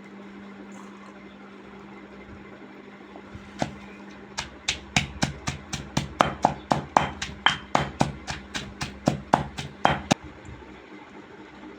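Pestle pounding walnuts with half-crushed green chillies in a mortar for chutney: about twenty sharp strikes, roughly three a second, starting about three and a half seconds in and stopping about ten seconds in.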